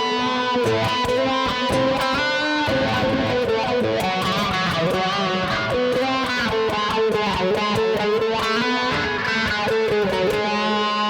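Electric guitar played through an effects pedalboard: a run of picked single notes and short phrases, with some bent notes.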